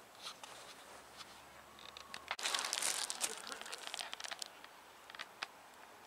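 Footsteps crunching in snow, a few scattered soft crunches, then a sudden louder burst of rustling and crackling about two and a half seconds in that lasts about a second before dropping back to faint crunches.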